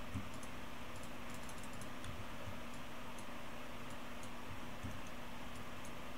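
Faint, irregular light ticks and clicks, a few a second, from a computer pointing device as circles are drawn on screen, over a steady low hum.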